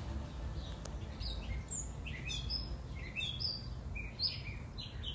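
Small birds chirping: a quick series of short high chirps, some rising and some falling, over a steady low background rumble.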